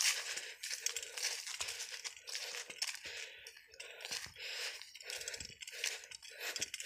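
Footsteps crunching on dry fallen leaves and dry grass at a walking pace, about two steps a second.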